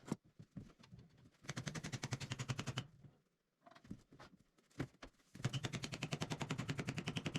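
A power tool, most likely a cordless impact driver, driving fasteners in two bursts of rapid, even hammering. The first lasts about a second and a half; the second, longer burst starts past the middle.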